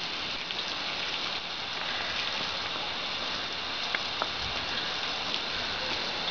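Garden hose running steadily, its water stream splashing.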